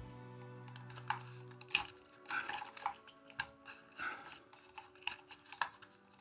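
Irregular small clicks and scrapes of a small screwdriver tip prodding the plastic body of a ceiling fan's pull-chain switch, working at a push-in terminal to release a wire.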